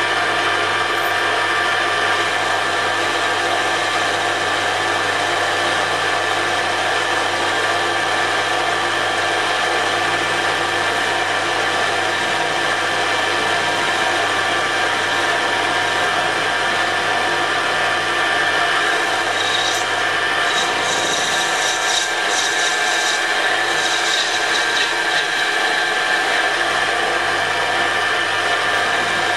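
Metal lathe running steadily, a many-toned whine and hum as the four-jaw chuck spins a drill chuck arbour under a cutting tool. A higher scratchy sound comes and goes for a few seconds past the middle.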